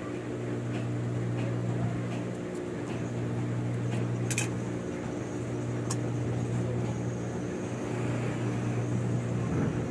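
Industrial sewing machine's electric motor humming steadily, with a couple of short sharp clicks partway through.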